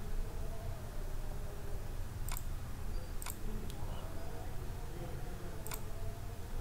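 Computer mouse clicking three times, the first two about a second apart and the third about two seconds later, over a steady low background hum.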